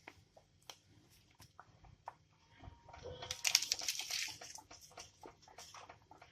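Light handling sounds as vanilla sachets are added to a pot of hot cocoa pudding: scattered soft clicks, and about three seconds in a louder rustling, scraping stretch lasting over a second.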